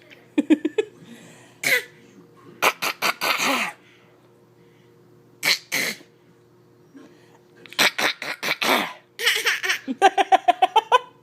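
A person fake-coughing in a string of short, forced cough bursts with pauses between them, breaking into quick bursts of laughter near the end.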